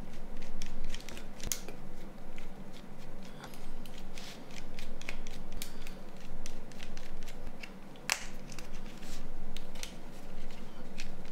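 Thin metal precision tool prying and scraping at the plastic casing of a Nokia N93 phone: scattered light clicks and scratches, with a sharper click about eight seconds in.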